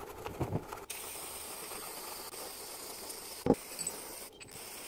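A brush scrubs foamy cleaner on an alternator stator, then a steady spray jet hisses as it cleans the alternator's end plate. A single sharp knock comes about three and a half seconds in.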